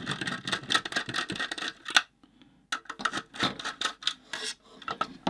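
Plastic housing of an inline extractor fan being handled and taken apart by hand: scraping, rubbing and small clicks of plastic parts. A sharp click comes about two seconds in, followed by a brief pause before the scraping and clicking resume.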